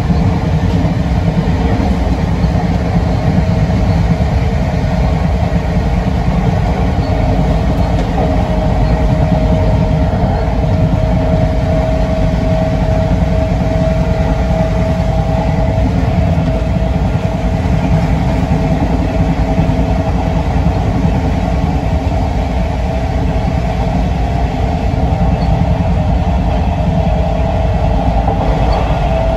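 Class 456 electric multiple unit standing at the platform with its on-board equipment running: a steady low hum and rumble, joined about eight seconds in by a steady whine.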